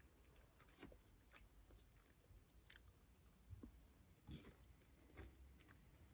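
Faint close-miked chewing of Home Run Ball, a small crisp choux-pastry puff filled with cream: soft crackling mouth sounds with a few sharper clicks scattered through.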